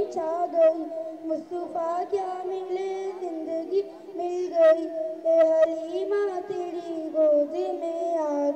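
A child singing a naat, a devotional song in praise of the Prophet, in a melodic, ornamented style with long held and gliding notes.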